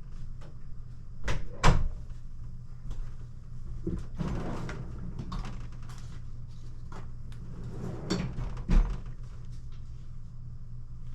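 Several knocks and clatters of hard objects being handled, the loudest about one and a half seconds in and again near eight to nine seconds, with a short scraping stretch between them, over a steady low hum.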